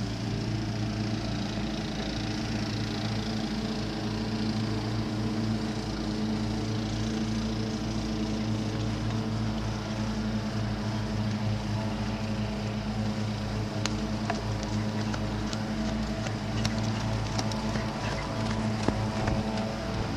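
Steady low mechanical hum made of several even tones at a constant level, with a few light clicks in the second half.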